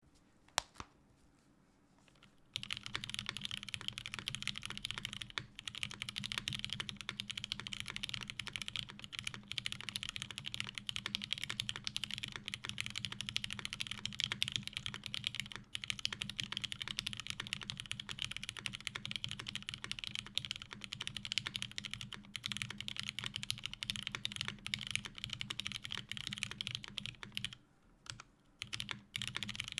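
Fast, continuous typing on a custom mechanical keyboard with lubed vintage Cherry MX Black linear switches in an aluminium plate, topped with GMK doubleshot ABS keycaps. After a couple of single key clicks it starts in earnest about two and a half seconds in, with a brief pause near the end.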